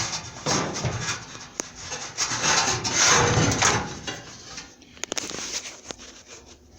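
Dryer parts rubbing and scraping as they are handled and worked into place during reassembly, in several long scrapes over the first few seconds, then quieter with a few light clicks about five seconds in.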